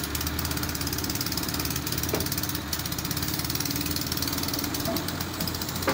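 Diesel engine of an F15 pick-and-carry crane running steadily.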